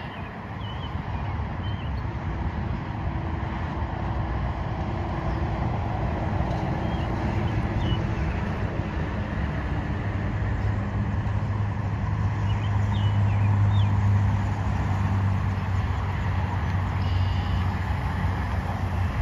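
Steady highway traffic going past, with a low engine drone that builds and fades about two-thirds of the way through, as of a truck passing. A few faint, short, high chirps come through now and then.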